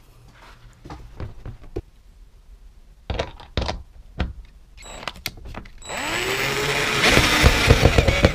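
Cordless drill driving a screw through the metal roof bracket of a plastic shed. A few knocks and clicks come first as the screw is set, then about six seconds in the drill spins up with a rising whine and runs on, pulsing rapidly.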